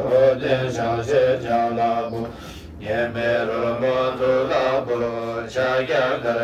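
Tibetan Buddhist chanting: voices intoning a mantra in a slow melodic line over a steady low drone, with a short breath pause about two and a half seconds in.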